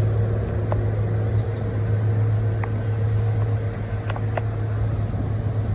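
A large engine running steadily: an even low hum with a fainter higher tone above it, and a few light clicks over the top.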